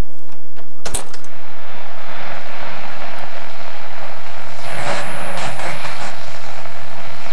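Loud rumbling noise with a low hum, likely a horror-film sound effect, broken by a sharp click about a second in. It swells past the middle and cuts off abruptly at the end.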